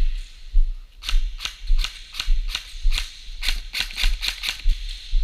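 An irregular run of sharp clicks over a low rumble. The clicks come in clusters of several a second, one about a second in and a longer one from about three and a half to nearly five seconds.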